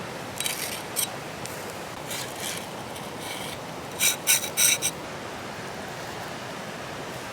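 Short crisp scraping sounds: a few scattered ones, then a cluster of four louder ones about four seconds in. Under them runs a steady rushing noise like wind or running water.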